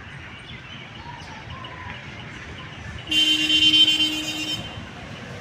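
Traffic hum with a single vehicle horn honk about three seconds in, held for about a second and a half; the honk is the loudest sound.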